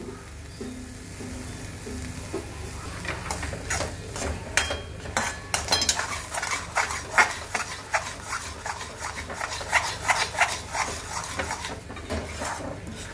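A metal slotted spatula scraping and clinking against a metal kadai as a thick chana dal and jaggery filling is stirred and turned over the flame. The strokes come quick and irregular from about three seconds in.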